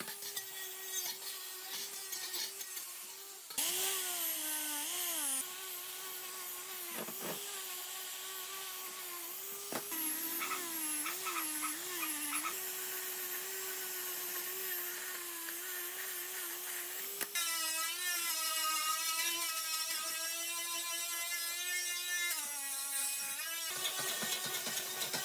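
Angle grinder with a wire wheel brush running and scrubbing rust off steel fan parts: a steady whine with a scratchy hiss over it. The pitch sags and wobbles whenever the brush is pressed into the metal.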